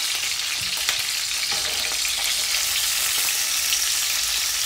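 Ring-shaped wekalim beef sausages sizzling steadily as they fry in oil in a pot until their outsides brown, with a few light clicks of metal tongs turning them.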